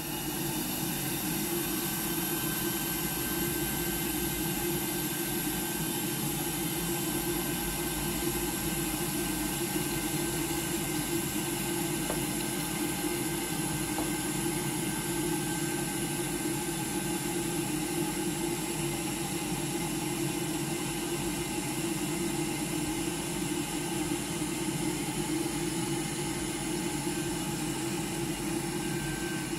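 Hot air rework station's blower running with a steady whooshing hum, switched on at the start and off near the end.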